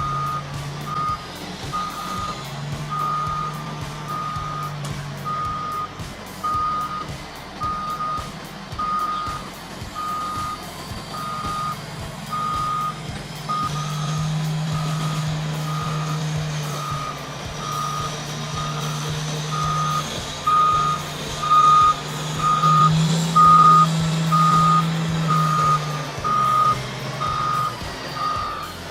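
Reversing alarm on a heavy vehicle beeping steadily, a little more than once a second, over the machine's engine running and changing load.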